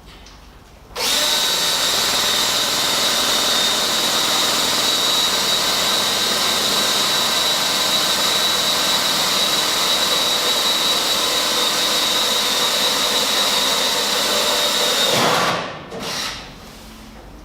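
Electric drill motor running steadily with a high whine, a center drill starting a pilot hole in the steel for a light-hanger mounting screw. It winds down with a falling pitch about fifteen seconds in, followed by a brief short burst.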